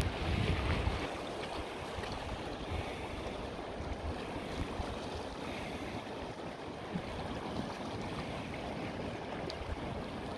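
Fast river rapids rushing steadily over rocks, with wind buffeting the microphone in low thumps near the start.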